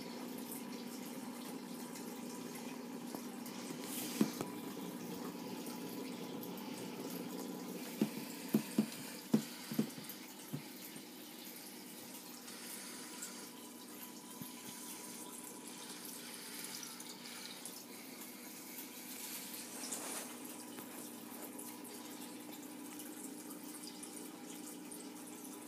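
Aquarium filter running, water steadily splashing and trickling into the tank. A sharp knock comes about four seconds in, and a quick run of about six knocks between eight and ten seconds in.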